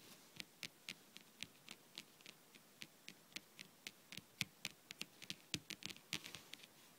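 Fingernails tapping on a tabletop: an irregular run of light, crisp clicks, a few a second, coming quicker from about four seconds in and stopping just before the end.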